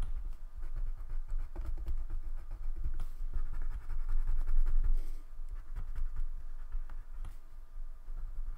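A black drawing tool scratching on paper in short repeated strokes as the butterfly's antennae are outlined.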